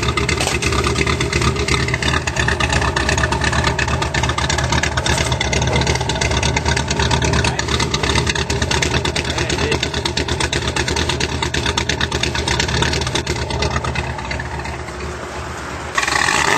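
Chevrolet Cavalier Z24 engine idling steadily, heard at the exhaust tip. It turns a little quieter near the end, then jumps back up in level suddenly.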